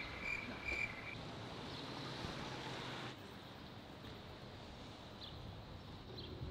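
Faint outdoor street ambience: a steady low hiss with no distinct events, dropping slightly quieter about three seconds in.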